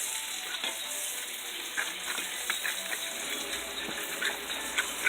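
Burger slider patties sizzling in a frying pan, a steady hiss with scattered little crackles of spitting fat.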